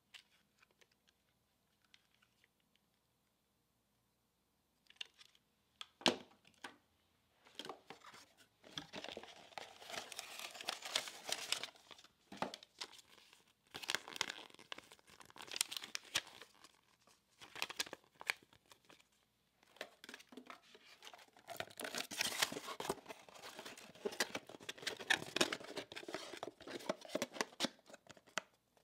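Paper and cardboard packaging being handled: a sharp click about six seconds in, then repeated stretches of rustling and crinkling as a paper instruction sheet is unfolded and the cardboard box is handled.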